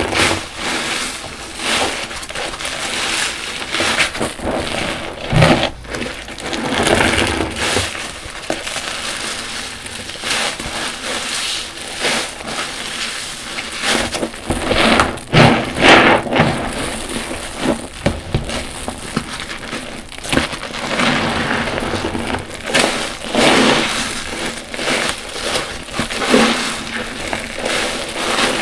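Car wash sponges soaked in soapy water being squeezed and rinsed: repeated wet squelches and crackling foam, with water splashing and dripping, in irregular surges every second or two.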